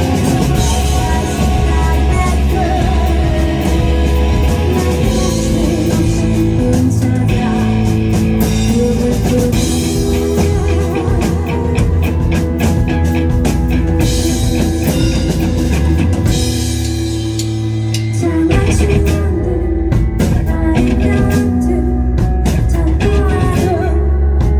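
Live rock band playing, with electric guitar, bass and drum kit. The band thins out briefly about two-thirds of the way through, then comes back in full.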